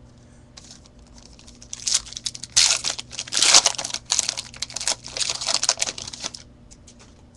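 Foil wrapper of a 2010 Topps Platinum football card pack being torn open and crinkled by hand: a dense crackling that starts about two seconds in and stops shortly before the end.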